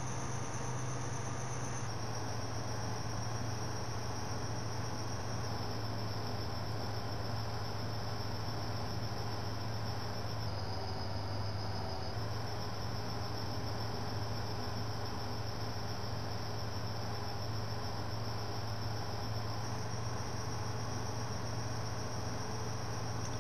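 Steady hiss with a constant low hum and no distinct events: the background noise of the recording setup.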